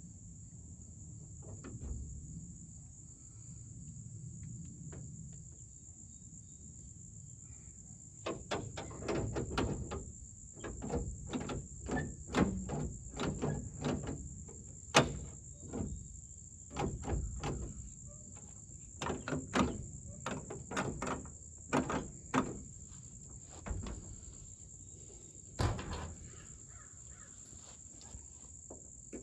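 Irregular series of short metallic clicks, knocks and rattles from a Chevy pickup's door-lock and handle hardware being worked into the door, busiest from about eight seconds in, over a steady faint high-pitched hum.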